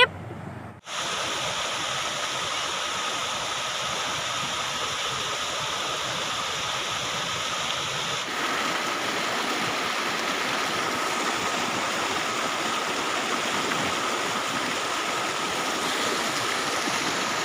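Rushing water of a waterfall's rocky rapids, a steady hiss that starts about a second in.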